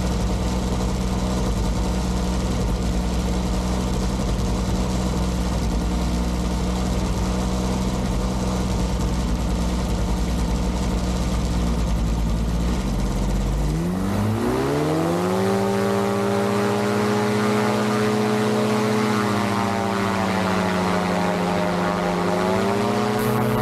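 Powered parachute trike's engine and propeller idling steadily as the engine warms up, then revved up about halfway through and held at a higher speed. Near the end it dips slightly and climbs again as the throttle is opened fully.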